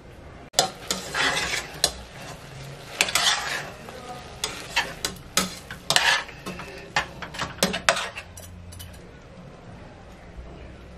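A spoon stirring kidney beans in a stainless steel pot, scraping and clinking against the metal sides and bottom in a series of strokes that stop about eight seconds in.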